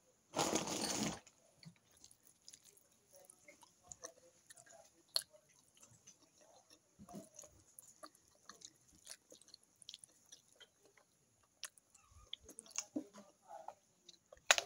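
A person eating fish stew and rice by hand close to the microphone: faint chewing and small mouth clicks scattered throughout, with a brief loud rustling noise about half a second in.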